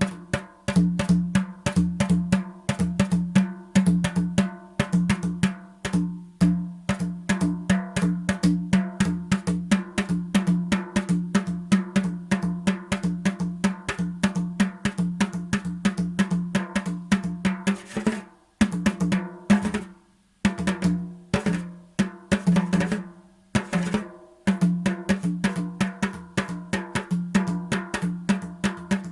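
Drum music: a fast, even run of drum strokes, several a second, over a steady low drum tone, with a few short breaks a little past the middle.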